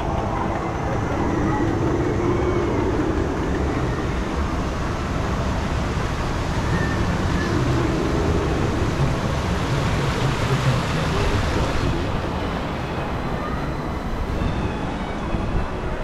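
Steady rushing water and low rumble around a round river-rapids raft floating along its water channel; the higher hiss eases about twelve seconds in.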